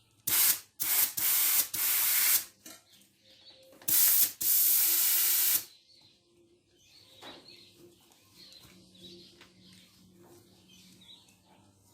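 Bursts of air hissing as a bicycle tyre is pumped up with a hand pump: five bursts in the first six seconds or so, the last and longest about a second and a half. Faint bird chirps follow.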